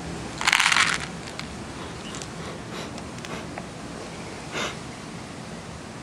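Dry corn kernels, sunflower seeds and peanuts poured from a plastic jar into a plastic lid: a short, loud rattle about half a second in. A few faint clicks and a smaller rattle follow.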